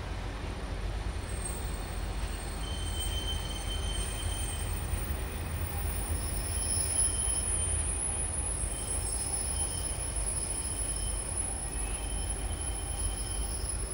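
Freight train of intermodal container and swap-body wagons rolling slowly past: a steady low rumble of wheels on rail, with thin, faint high-pitched wheel squeals coming and going.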